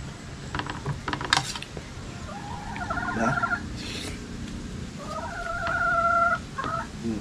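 Domestic chickens calling: two long, steady-pitched calls, about two and a half and five seconds in, with a few short clicks about a second in.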